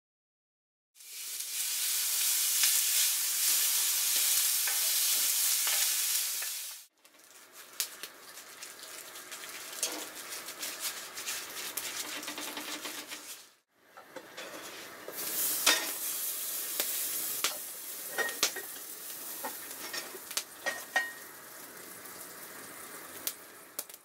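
Food sizzling in hot pans over a wood campfire, heard in three separate cuts. First comes a loud, steady sizzle, then a quieter stretch with scattered clicks and crackles, then sizzling with frequent sharp pops and crackles.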